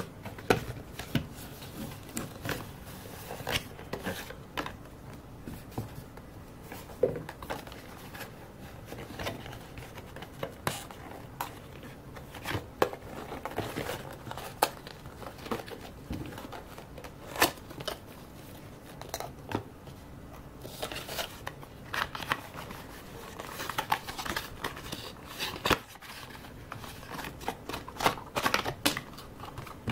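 Hands unpacking a power bank from a cardboard box and plastic tray: scattered clicks, taps and light rustling and scraping of the packaging.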